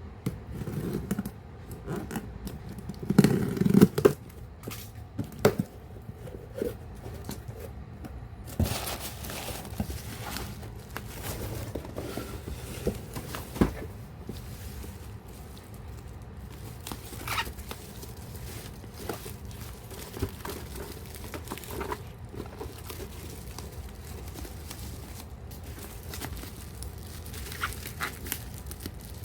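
Packaging of a boxed action figure being handled and opened by hand: plastic crinkling and rustling, with scattered sharp taps and clicks. The loudest rustling comes about three to four seconds in.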